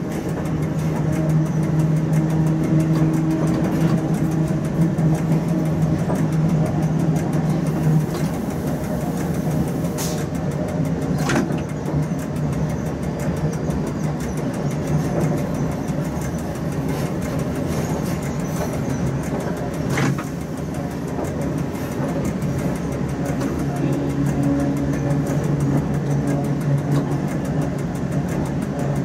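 Running noise in the cab of a Rhaetian Railway Ge 6/6 II electric locomotive moving slowly over station pointwork: a steady hum, with a few sharp clicks as the wheels cross switches and rail joints.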